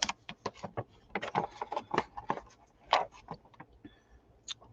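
Irregular light clicks and taps of wooden colored pencils and their metal tin being handled.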